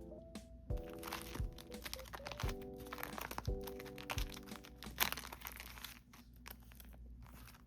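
Background music with a steady beat, over the crinkling and rustling of sticker sheets and plastic sleeves being handled. There is a sharper click about five seconds in.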